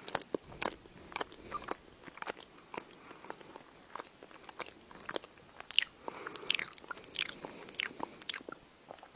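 Chihuahua licking its paw, a run of irregular wet smacking and clicking mouth sounds, louder and closer together in the second half.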